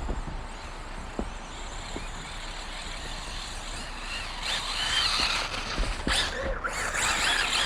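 Losi 8ight-E electric buggy's brushless motor and drivetrain whining, the pitch rising and falling with the throttle from about four and a half seconds in, the wheels spinning on hard snow. Before that there is a steady hiss with a few light clicks.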